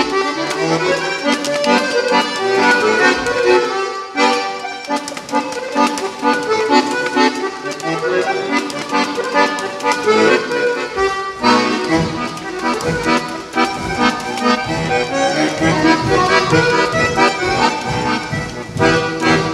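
A live accordion playing a lively folk-dance tune, with a stronger low beat coming in about twelve seconds in.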